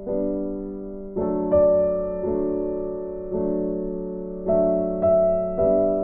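Slow, gentle piano music: notes and chords struck about once a second, each ringing on and fading away.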